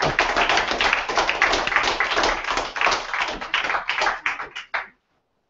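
Audience applauding, thinning to a few last claps and stopping about five seconds in.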